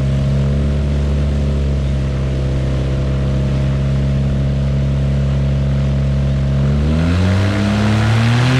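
Water-cooled Viking aircraft engine turning a Warp Drive propeller, running steadily at low rpm, then rising in pitch about seven seconds in as the throttle opens for a static thrust test.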